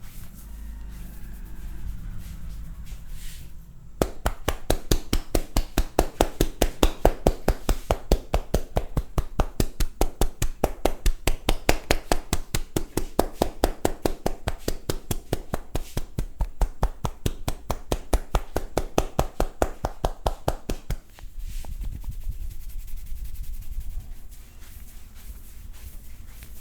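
Hands striking the body in fast, even percussive massage strokes (tapotement), several slaps a second, starting about four seconds in and stopping abruptly well before the end. Softer rubbing of hands on skin comes before and after.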